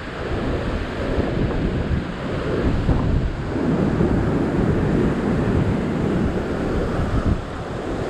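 Strong surf breaking against a rock ledge and washing across it, with wind buffeting the microphone.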